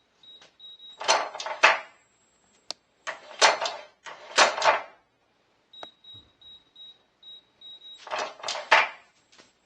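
Electronic safe keypad beeping with each key press as a code is entered, with louder, rattling mechanical bursts as the lock and door bolts are worked during testing of the new lock.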